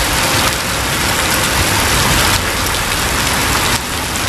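Heavy rain pouring onto wet pavement: a loud, steady hiss of countless drops splashing.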